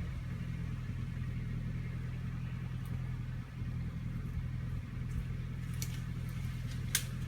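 Engine of the vehicle pulling the tree out on a chain, running steadily at idle with no revving. A few brief sharp clicks come near the end, the last one the loudest.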